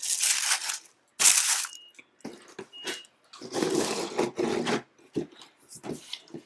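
Crinkly shoebox wrapping rustling and crumpling as it is grabbed and pulled about. There are two loud bursts in the first two seconds, then softer, broken rustling.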